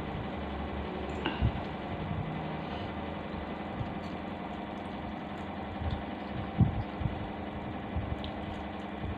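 A person eating fried noodles with a fork: soft chewing and fork-on-plate sounds, with brief knocks about a second and a half in and again about six and a half seconds in, over a steady mechanical hum like a fan.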